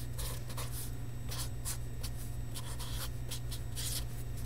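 Felt-tip marker writing on paper: a string of short, separate strokes as letters and symbols are drawn, over a steady low hum.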